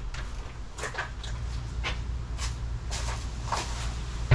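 Irregular light knocks and clicks, about six of them, over a steady low hum.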